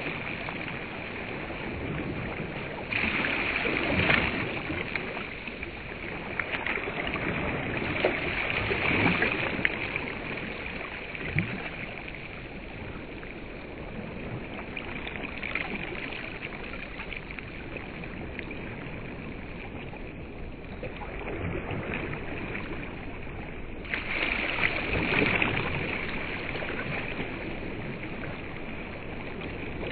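Small waves washing onto a sandy reservoir shore, the rush of water swelling and fading every few seconds.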